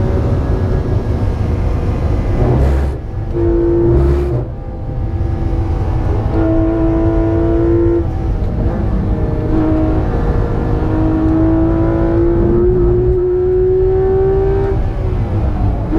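Porsche 911 GT3 RS's 4.0-litre flat-six running hard on a fast lap, its pitch stepping down and sliding back up as speed and throttle change. Two brief sharp bursts cut through about three and four seconds in.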